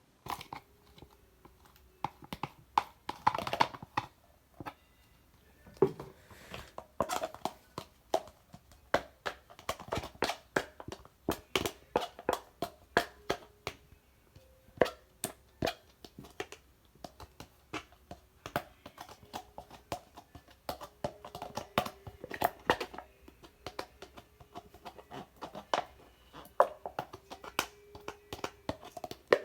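Brown sugar bubble tea slime being squished and stretched by hand, giving a steady run of irregular wet clicks and pops.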